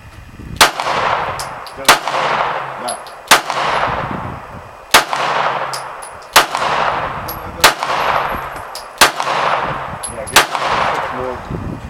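Glock 19 Gen 4 pistol firing 9mm handloaded rounds: eight single shots, evenly paced about a second and a half apart, each followed by an echo that trails off.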